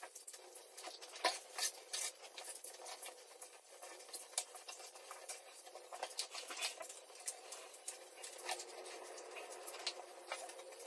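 Notched trowel spreading flooring adhesive over a bare concrete floor: irregular scraping with many small clicks and taps as the blade drags through the glue.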